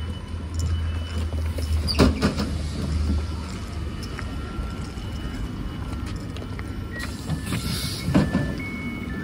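Passenger train standing at a platform after coming to a stop. Its low hum fades out about three and a half seconds in, with a sharp clunk about two seconds in. Near the end a short hiss of air and another clunk are followed by short electronic beeps from the carriage door as it is released.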